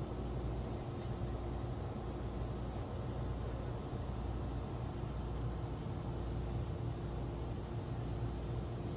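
Distant Falcon 9 rocket launch heard as a low, steady rumble, with a faint steady hum above it.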